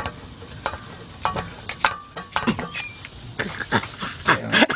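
Irregular metal clicks and scrapes from a screwdriver prying and levering against the flywheel and torque converter. The noise comes from the screwdriver itself, not from the engine knock.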